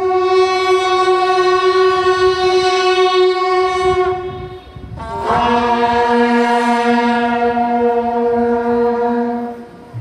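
A horn blown in two long held notes of about four seconds each, the first higher and the second lower. The second note opens with a short upward slide.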